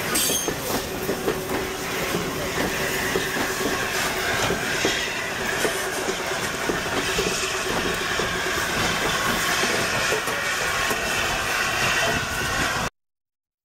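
A train of coaches with an LNER A4 steam locomotive rolling past close by, wheels clicking and rumbling over the rail joints, with a thin whine over the middle part. The sound cuts off suddenly about a second before the end.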